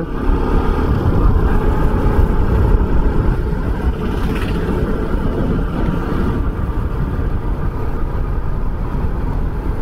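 Bajaj Pulsar RS200 motorcycle riding at a steady pace, its engine running under heavy wind rumble on a helmet-mounted mic.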